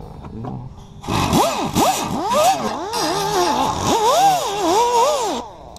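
Air-powered die grinder with an abrasive disc stripping paint from a steel body panel. A high whine with a harsh grinding hiss starts about a second in and stops near the end. Its pitch repeatedly sags and climbs as the disc is pressed into the metal and eased off.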